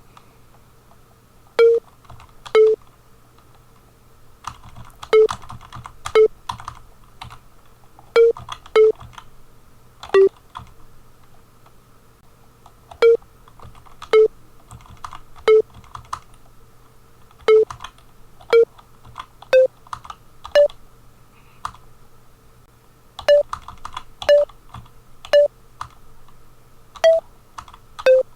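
Computer keyboard typing as a melody is keyed into a tracker. Short single sampled notes sound at changing pitches, about twenty of them, spaced roughly a second apart: each note plays once as it is entered.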